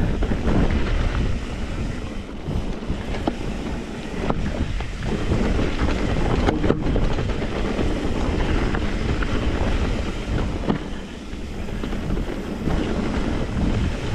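Wind buffeting the microphone as a mountain bike runs downhill over a rocky trail, with tyre noise and rattles from the bike and a few sharp knocks.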